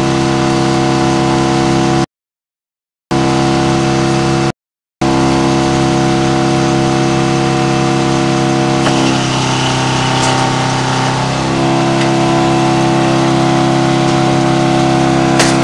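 Frick double-zero circle sawmill running with a steady, constant-pitch mechanical drone. About nine seconds in, the sound roughens and shifts for a couple of seconds before settling back. The audio cuts out completely twice early on, once for about a second and once for half a second.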